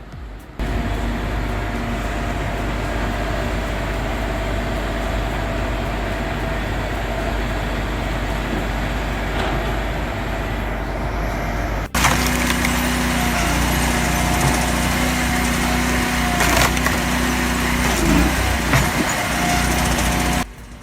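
Engine-driven wood-processing machinery running steadily, with wood cracking and splintering. About twelve seconds in the sound cuts abruptly to a louder stretch of machine noise with scattered sharp cracks.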